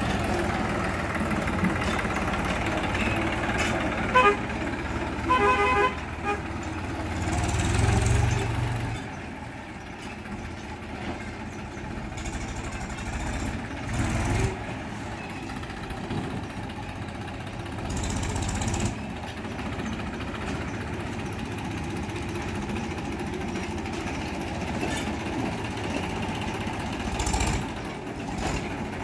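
Tractor diesel engine running steadily, louder at first and swelling again now and then, with a short horn toot about four seconds in and a quick run of horn beeps around six seconds.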